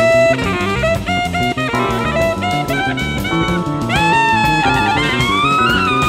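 Late-1970s jazz-fusion studio recording: a drum kit keeps a busy steady beat under sustained melodic lines. A lead note slides up in pitch about four seconds in, then bends up and back down near the end.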